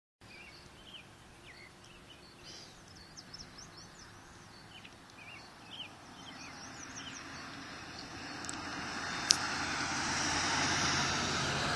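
Birds chirping, then a pickup truck approaching and passing on the road, its road noise rising from about six seconds in and loudest near the end. A single sharp click comes just before the truck's loudest moment.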